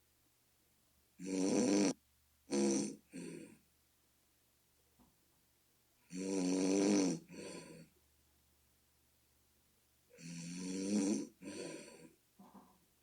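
A person snoring in sleep: three bouts about four to five seconds apart, each a long pitched snore followed by one or two shorter ones. The snorer likens the sound to a bullfrog.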